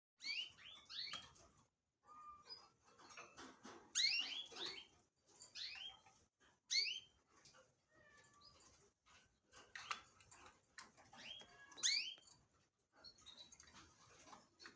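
Domestic canary singing in phrases of rapid chirps and quick upward-sweeping notes, with short pauses between phrases.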